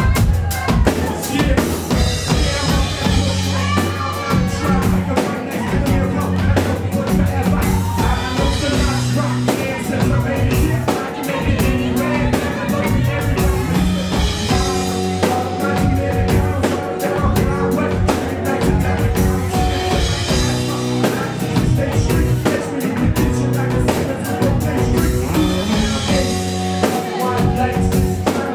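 Live band playing a hip-hop pop song: a drum kit keeps a steady beat under sustained chords, with the band's electric guitars and keyboards.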